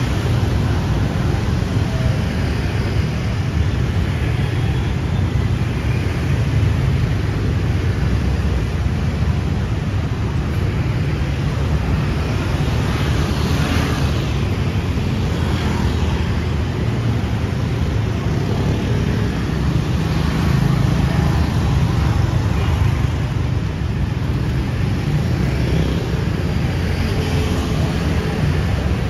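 Busy city street traffic: a steady mix of passing motor vehicles with a strong low rumble.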